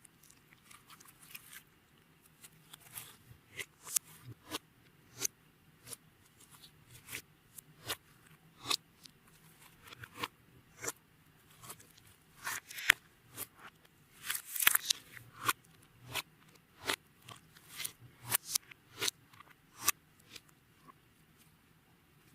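Clear slime mixed with beads being worked by hand: a string of irregular sharp pops, clicks and crunches, busiest and loudest in the middle.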